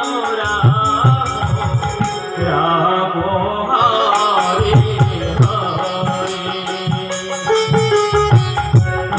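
Bengali devotional kirtan music: voices singing over a Roland keyboard, with two-headed barrel drums (khol) beating a steady rhythm and regular bright, sharp clinks above it. The high clinks pause briefly about three seconds in.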